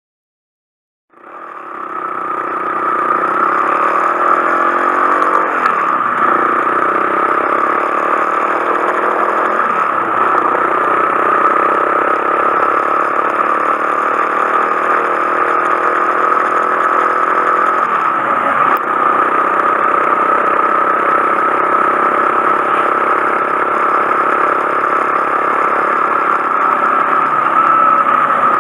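Honda Monkey 125's single-cylinder engine running while riding, cutting in suddenly about a second in. The engine pitch dips and climbs again a few times, as with gear changes or throttle changes.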